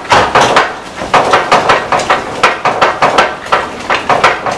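A wooden spoon knocks and scrapes against an enamelled pot as thick risotto is worked hard, about four strokes a second with a brief pause just before one second in.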